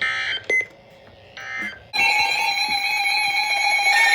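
Emergency Alert System broadcast on NOAA Weather Radio: two short digital header data bursts about a second and a half apart. The long steady alert tone starts about two seconds in, announcing a new warning.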